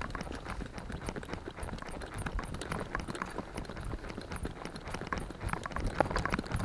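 Hoofbeats of a ridden horse, heard from the saddle, going on without a break.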